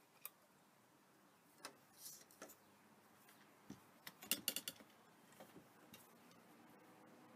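Scattered small clicks and taps from a metal clipboard clip and hand tools being handled, with a quick run of sharp metallic clicks about four and a half seconds in.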